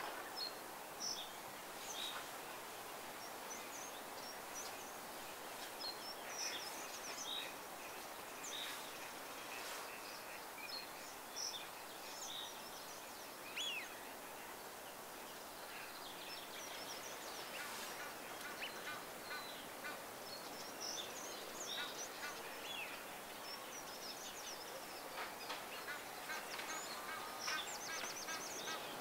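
Wild birds calling: many short, high chirps and whistles scattered over a steady background hiss. A faster run of evenly repeated calls comes near the end.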